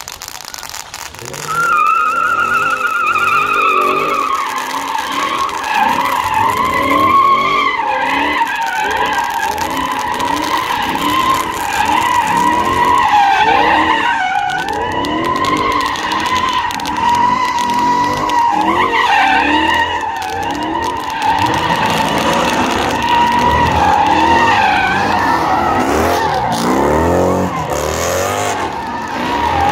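Car tyres squealing without a break as cars spin donuts on pavement. The squeal's pitch wavers, and the engines rev up and down beneath it. It starts loud about a second and a half in.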